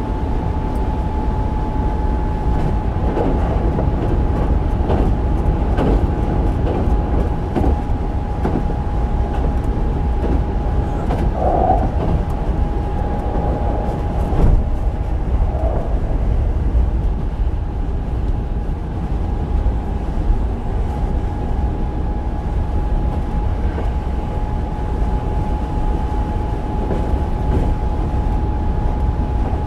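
Hankyu 8000 series electric train with Toshiba GTO-VVVF inverter control, heard from inside the car running between stations. A steady low rumble of wheels on rail, scattered clicks over rail joints, and a steady high tone held throughout.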